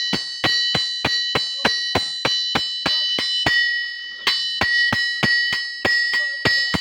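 Blacksmiths' hammers striking hot metal on an anvil in a fast, even alternating rhythm, about three blows a second, each blow leaving a clear ringing tone. The hammering pauses briefly a little past the middle, then resumes.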